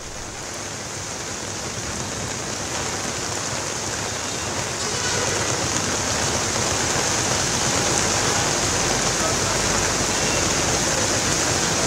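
Heavy rain pouring onto a flooded city street, a steady hiss of falling water that grows louder over the first several seconds and then holds.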